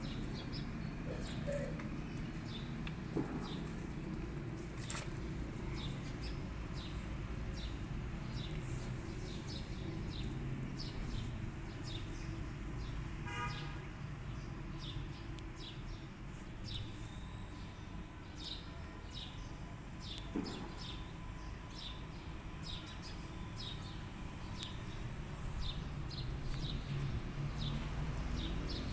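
Outdoor ambience: small birds chirping in short, high, repeated notes over a steady low rumble of distant traffic.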